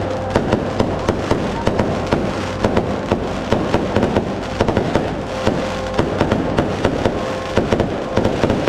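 Firecrackers going off in a rapid, irregular string of sharp bangs, several a second without a break.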